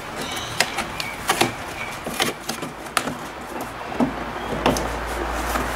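Cardboard box being opened by hand: an irregular run of sharp taps, clicks and short scrapes as the flaps and packaging are handled. A low rumble joins about four seconds in.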